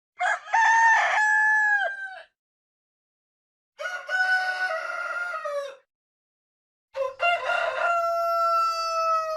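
Rooster crowing three times, each a cock-a-doodle-doo of a short opening note and a long held note that drops in pitch at the end, with dead silence between the crows.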